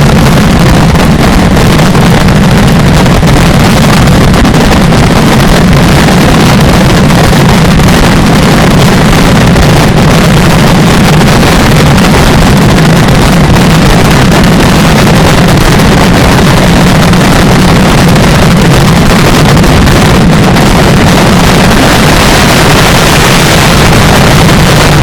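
Daylight fireworks firing a dense, nonstop barrage of loud salutes, the bangs running together into one continuous din with no gaps, typical of the closing barrage of the display.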